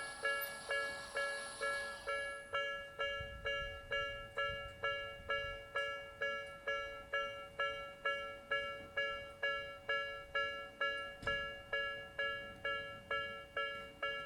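Electronic Japanese railway level-crossing alarm of the Tobu 'B' (Nikko type) sound, ringing a steady, even run of bell-like dings about twice a second.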